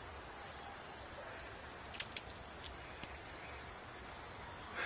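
Steady high-pitched insect chorus, like crickets, droning without a break, with two short sharp clicks about two seconds in.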